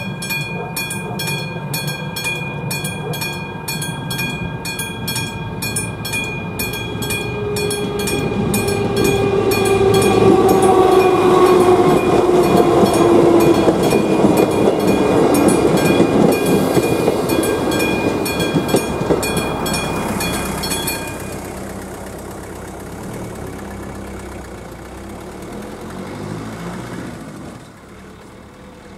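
Bell of AŽD 71 level-crossing warning signals ringing in rapid, steady strikes while a passenger train passes. The train is loudest in the middle, with a falling pitch as it goes by. The bell stops about three quarters of the way through, leaving the train fading away.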